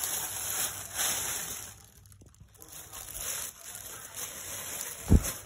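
Thin plastic shopping bag rustling and crinkling as a kitten moves about in it and a hand shifts it, going quiet for a moment about two seconds in. A soft thump near the end.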